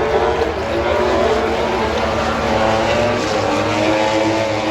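MotoGP racing motorcycles at high revs, several engine notes overlapping, their pitch gliding up and down as the bikes go past.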